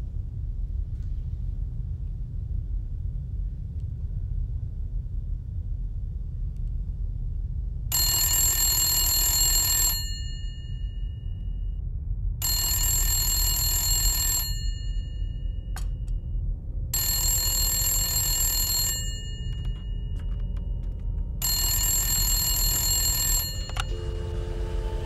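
A wall-mounted phone rings four times, each ring about two seconds long with pauses of about two and a half seconds, before a click as the handset is lifted near the end. A steady low rumble runs underneath.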